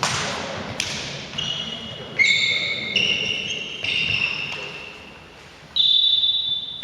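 Indoor volleyball rally: a couple of sharp ball strikes, then a run of high, held squeals, the loudest about two seconds in and another near the end.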